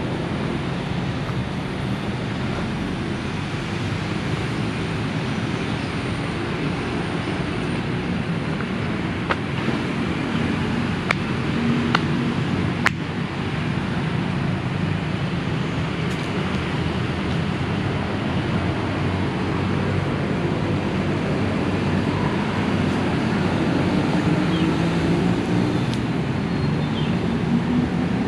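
Steady rumble of road traffic, with a few sharp clicks near the middle.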